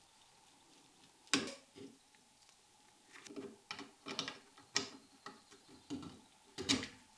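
Workshop handling noises: an irregular string of sharp clicks and knocks, about a dozen, as tools and parts are handled. The loudest come about a second in and near the end.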